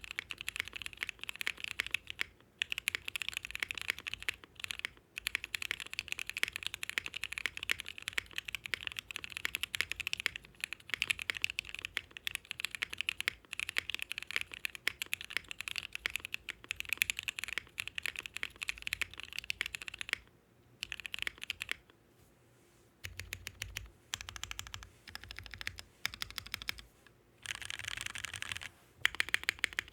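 Mechanical keyboard typing on Gateron Ink linear switches, lubed with 205g0 and filmed, in a Bakeneko board with a polycarbonate plate. Fast continuous keystrokes break off for a couple of seconds about two-thirds of the way in, then resume in short runs.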